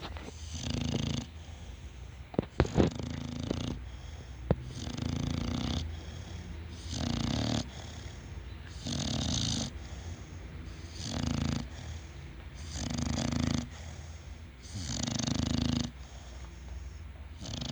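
Steady snoring, one snore about every two seconds. A few sharp clicks in the first few seconds are louder than the snores.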